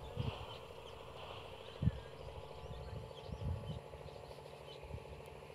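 Quiet rural ambience: faint bird chirps over a low steady hum, with a few soft low thumps, the clearest just under two seconds in.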